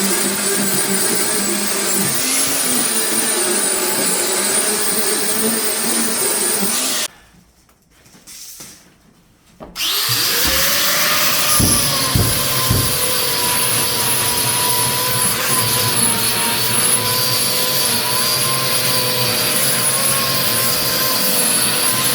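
Electric sander running steadily on wood flooring. It cuts off about seven seconds in, and after a near-silent pause of a few seconds it is switched on again, rising in pitch as it spins up, then runs on steadily, with a few low knocks just after the restart.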